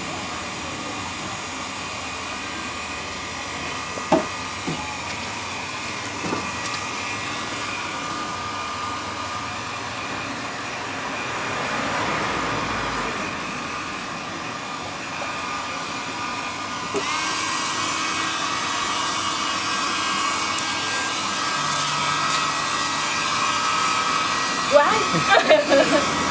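Handheld hair dryer blowing steadily with a whirring hum while drying a dog's coat. It gets louder about two-thirds of the way through.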